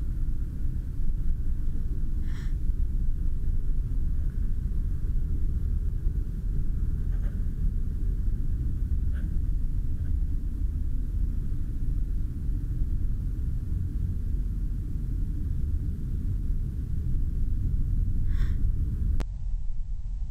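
Steady low rumble of a car's engine and tyres heard from inside the cabin while driving on a snow-covered road, with a few faint short squeaks.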